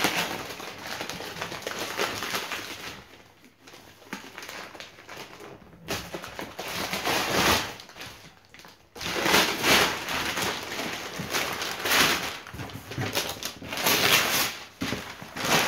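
Brown paper wrapping being torn and crumpled off a cardboard box, in irregular bursts of ripping and rustling, with a quieter stretch about three to six seconds in.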